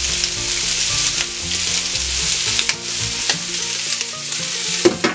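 Diced, seasoned pork belly frying in its own fat in a pan: a steady sizzle with many small crackling pops as the pieces render into pork cracklings. Near the end a short knock as a glass lid is set onto the pan.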